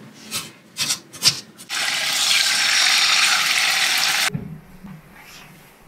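A few sharp knife strokes chopping red onion on a wooden cutting board, then pork pieces sizzling loudly in hot oil in a pan, the sizzle cutting off suddenly about four seconds in.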